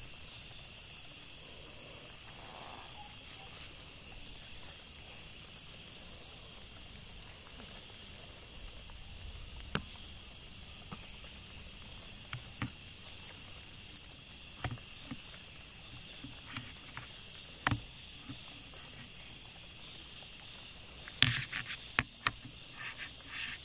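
Steady high-pitched night insect chorus, several insects each holding a level tone. Scattered rustles and snaps of someone moving through undergrowth, the loudest cluster a little after 21 seconds in.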